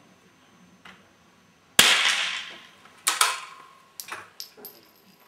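A .22 rimfire target rifle fires a single shot with a decaying echo about two seconds in, and a second, quieter bang with a short ringing tail follows about a second later. Near the end come several sharp metallic clicks as the rifle's bolt is worked to reload.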